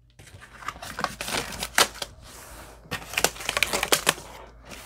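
Hands unpacking a rubber-banded cardboard bundle of plastic-wrapped graded comic slabs: irregular crinkling of plastic wrap and cardboard, with scattered sharp clicks.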